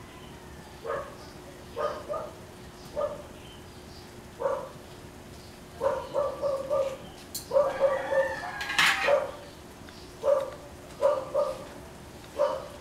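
Domestic animals calling: short, pitched calls repeat about once a second, some in quick runs of two or three, with a longer, louder call a little after the middle.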